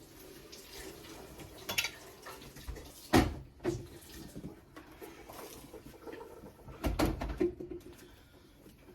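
Condiment bottles and jars being set back onto refrigerator shelves: a few separate clunks and knocks, the loudest about three seconds in and a pair more around seven seconds.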